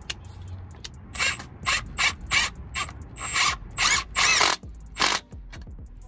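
Cordless brushless power tool run in about nine short bursts, tightening the worm-gear hose clamps on an intercooler pipe's coupler.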